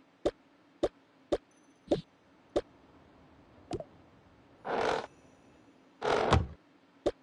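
Objects being handled and set down: seven sharp knocks or taps at uneven spacing, with two short rustling scrapes, one near the middle and one about two-thirds of the way through.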